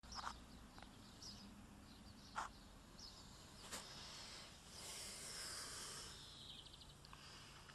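Near silence: faint outdoor ambience, a low steady hiss with a few soft ticks and faint high chirps.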